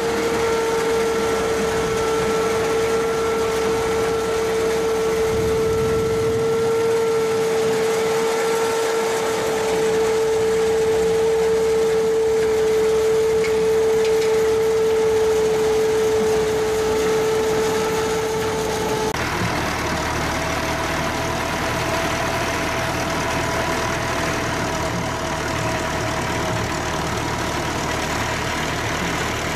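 Tractor-powered pumpkin seed harvesting machinery running with the tractor engine, a steady machine whine over the engine. About two-thirds of the way in the sound changes abruptly to another tractor-driven pumpkin seed extractor, with a lower-pitched whine over a heavier engine rumble.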